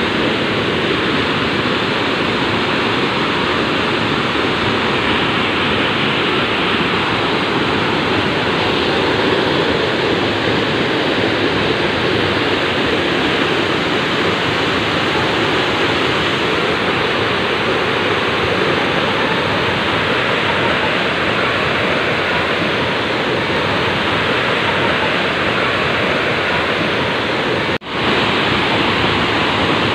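A large waterfall pouring, a loud, steady rush of falling water that dips out for an instant near the end.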